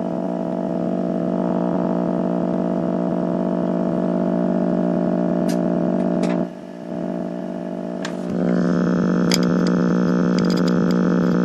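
A steady electrical buzz from the tube radio under FM IF alignment, with a low fundamental and many overtones. It drops out briefly a little past six seconds, then comes back brighter and harsher from about eight seconds in, as the IF transformer cores are being turned. A few faint clicks.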